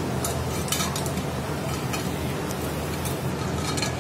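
Chain wrench links clinking lightly against the metal of a spin-on filter canister on a screw air compressor as the wrench is worked to loosen it: a handful of short metallic clicks. Under them runs a steady low machinery hum.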